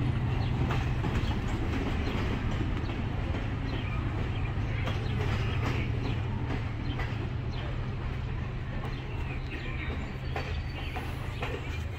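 Freight cars of a short local train rolling past on the rails, with irregular clicks and knocks from the wheels over a steady low rumble, gradually fading as the train moves away.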